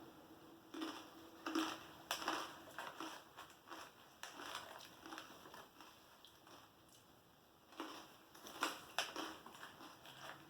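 Someone chewing crunchy chili-lime seasoned toasted corn snacks: faint, irregular crunches, bunched near the start and again near the end.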